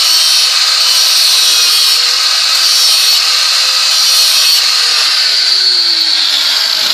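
Electric angle grinder running under load, grinding a steel lawn mower blade's cutting edge down to fresh metal, a steady motor whine with a high grinding hiss. Over the last two seconds the motor falls in pitch as it winds down, and it stops at the very end.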